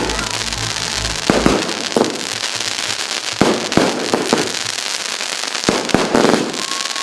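Fireworks going off: about eight sharp bangs at irregular intervals over a continuous crackle and hiss of bursting stars.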